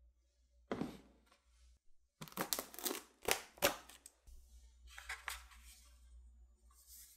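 Plastic food-storage container being handled and its lid pried off: a series of sharp plastic clicks and crackles, thickest in the middle.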